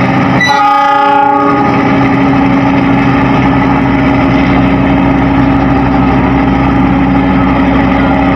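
Diesel locomotive engine running loudly close by, with a short horn blast about half a second in that lasts about a second.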